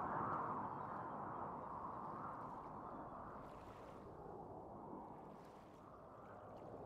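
Small waves washing and lapping at the shore, a soft wash of water that swells at first and slowly ebbs.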